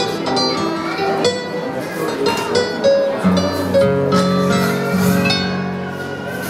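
Two classical guitars played together as a fingerpicked duet: plucked melody notes over a bass line, with low bass notes ringing on from about halfway through.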